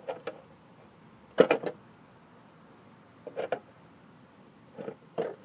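A few short bursts of knocks and clicks with quiet between them, the loudest about a second and a half in: handling noise.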